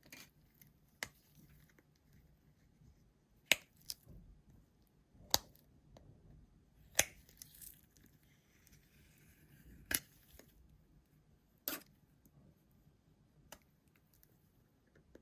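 Scattered sharp clicks and taps from hands handling a Samsung Galaxy S10, its back-glass parts and small repair tools, about eight of them spread irregularly, with a short soft rustle near the middle.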